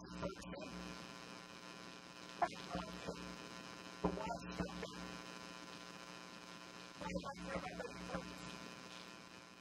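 Steady electrical mains hum with a buzzy edge from the sound system, with a few faint, brief irregular sounds breaking in now and then.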